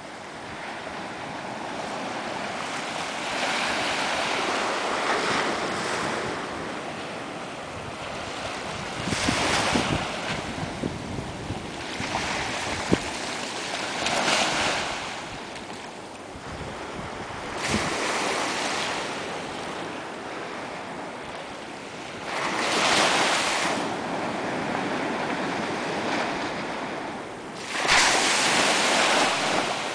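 Small ocean waves breaking and washing up on a sandy beach, the surf swelling into a louder wash every few seconds, with wind rumbling on the microphone.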